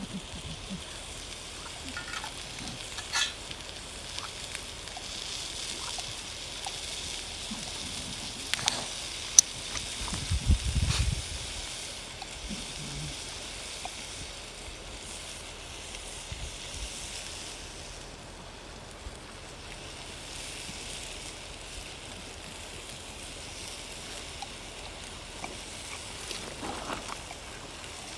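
Bacon sizzling in a pan over a campfire: a steady frying hiss with scattered crackles. A brief low rumble comes about ten seconds in.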